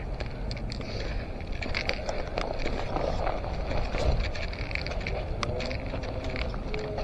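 Steady low rumble of wind and handling on an action camera, with scattered small crackles and clicks.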